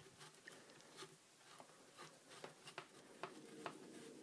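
Near silence with faint, irregular small clicks and scrapes of a hex driver turning the screws that hold a cooling fan's metal mount to a plastic RC-truck chassis.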